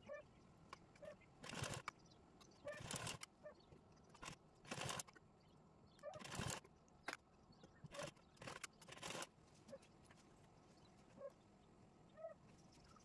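Fabric and cord rustling and brushing against a sewing machine's metal plate as a quilted fabric latkan is handled, in about seven short bursts, with faint short animal calls in the background between them.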